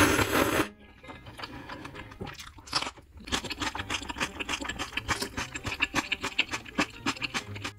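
Close-miked eating sounds of ramen noodles: a loud slurp lasting under a second, then a long run of quick, wet chewing clicks.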